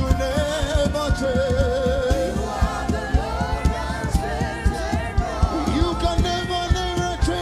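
Live gospel worship music: voices singing a slow melody with vibrato over a steady drum beat and bass.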